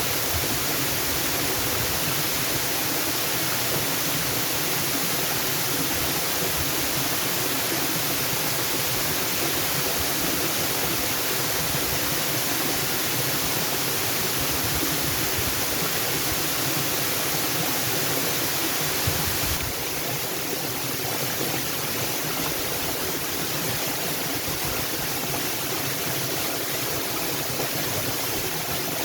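Waterfall: a steady, unbroken rush of falling water, dipping slightly in level about two-thirds of the way through.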